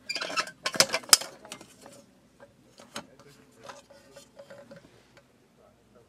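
Aluminium camping cook pot and lid being handled and knocked together: a clatter in the first second with two sharp clinks, then lighter scattered taps that die away about five seconds in.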